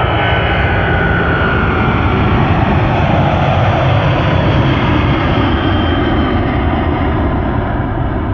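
Boeing 777-200ER's Rolls-Royce Trent 800 engines screaming at takeoff power as the jet lifts off and climbs away. A loud, steady jet noise with a faint whine that drops a little in pitch in the first couple of seconds; it is loudest in the middle and eases toward the end as the aircraft moves away.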